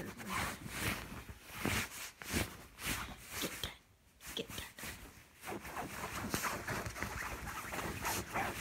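A dog burrowing its nose into a duvet and snuffling into the bedding. The cover rustles and scrunches in irregular bursts as the dog and a hand work at the fabric, with a short lull about four seconds in.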